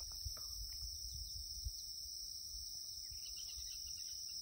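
Steady high-pitched insect chorus at dusk, one unbroken trill, over a low rumble.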